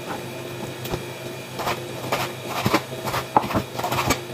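Kitchen knife cutting raw meat on a wooden cutting board: about eight irregular knocks of the blade against the board, most of them from about a second and a half in. A steady low hum runs underneath.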